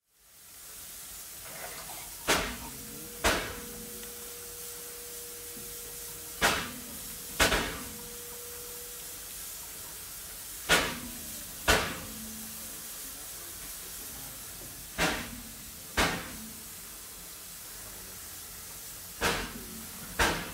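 Water running from a water tower's hose into a steam locomotive's tank, a steady hiss, broken by pairs of sharp knocks about a second apart that come back about every four seconds.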